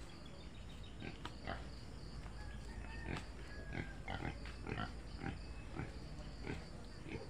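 Pigs in a pen, piglets among them, giving short squeals and grunts at irregular intervals, a few of them brief high squeaks.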